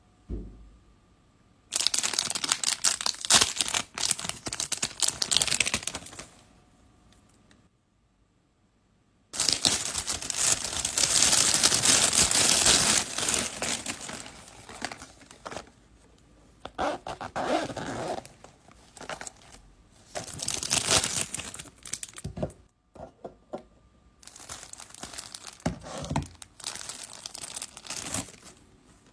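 Packaging being torn open and crinkled by hand, in several noisy stretches with short pauses between them and a near-silent break about eight seconds in.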